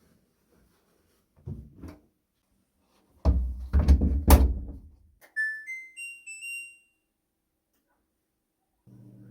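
Several dull thuds, like a heavy appliance door or panel being handled, followed by a short rising electronic chime of a few beeping notes, the kind an LG WashTower washer-dryer plays when switched on. A low steady hum starts near the end.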